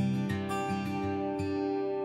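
Instrumental background music: an acoustic guitar playing plucked notes, with a new note or chord every fraction of a second.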